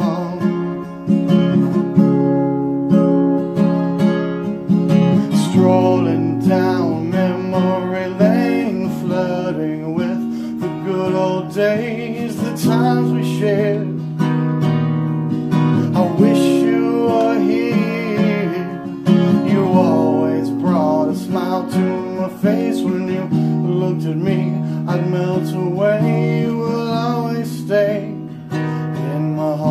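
Acoustic guitar playing the instrumental break of a slow folk-country song: strummed chords with a melody line above them that bends in pitch.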